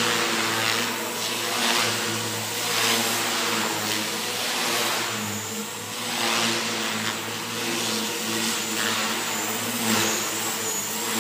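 Electric Forza 450 RC helicopter flying: a steady rotor buzz with the whine of its electric motor. The sound swells in repeated whooshes about every second as the blades bite during pitch changes, and it echoes in the hall.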